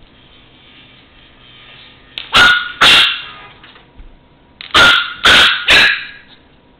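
Chihuahua puppy barking playfully at a toy truck: five short, high barks in two bunches, two and then three, starting about two seconds in.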